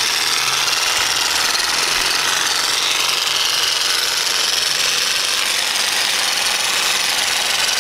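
Jigsaw percussive massage gun running steadily, its head hammering against a person's leg muscles.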